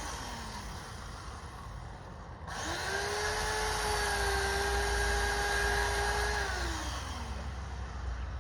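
Two-stroke chainsaw engine revving: it winds down to idle at the start, rises to a high steady whine about two and a half seconds in, holds for about four seconds, then drops back to idle.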